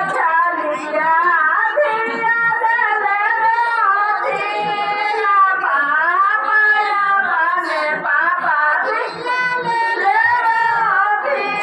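Women singing a beti ke geet, a traditional folk song for a daughter, in a slow melody whose pitch rises and falls, with more than one voice overlapping.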